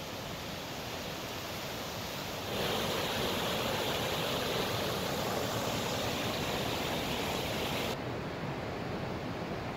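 Rushing whitewater of a mountain stream, a steady noise. About two and a half seconds in it jumps louder and brighter, and about eight seconds in it drops back suddenly.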